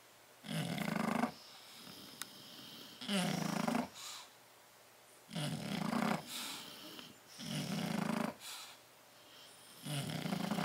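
Bulldog snoring in deep sleep: five loud, rasping snores about two to three seconds apart, with softer, wheezy breaths between them.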